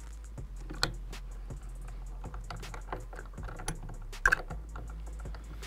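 Rifle parts and tools being handled on a workbench: scattered light clicks and clacks, with two louder knocks, one about a second in and one about four seconds in, over a steady low hum.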